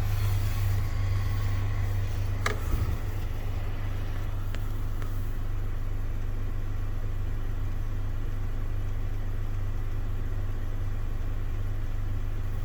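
Steady low hum of a 2018 Honda Accord running with the climate control on, heard from under the dash. A sharp click about two and a half seconds in and a few fainter clicks later come from a malfunctioning blend door actuator.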